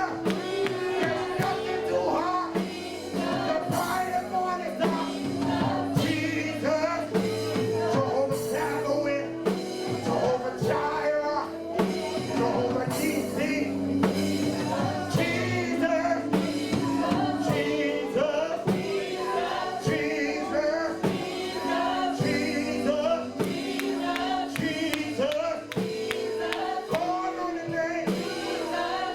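Gospel worship music: voices singing over sustained instrumental chords.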